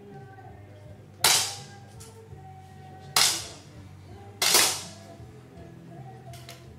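Three 10 m air pistol shots, each a sharp crack with a short echo in the hall, about one, three and four and a half seconds in, with a faint tick or two near the end; quiet background music underneath.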